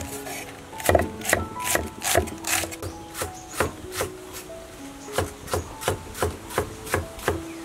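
Cleaver shredding cabbage on a wooden chopping board: even knife strikes about two to three a second, over background music.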